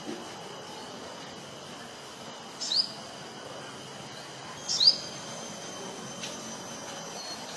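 Sogon bird giving two sharp, high call notes that sweep downward, about two seconds apart, over a steady high insect drone.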